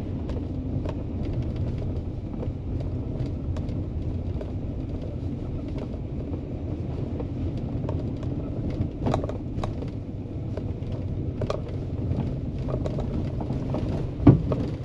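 A vehicle engine running steadily at low speed over a rough, washed-out dirt trail, with scattered knocks and rattles from bumps and a sharper knock near the end.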